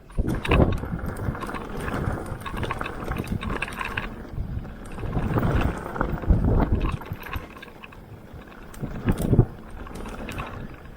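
Mountain bike riding over a dirt trail: tyre noise and rattling from the bike, with wind buffeting the microphone in several louder surges.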